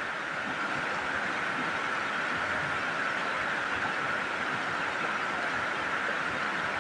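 Steady rush of a swollen, muddy river in flood, a continuous even roar of water over rocks.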